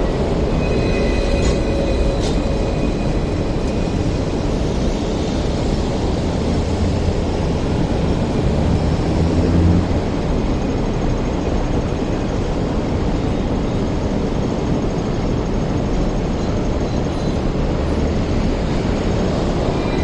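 Hong Kong double-decker electric tram running past close by: a steady rumble of wheels on the street rails, with a thin high squeal and two sharp clicks in the first few seconds.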